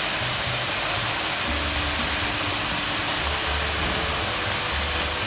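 Potato chips deep-frying in hot oil in a wok, giving a steady sizzle and crackle.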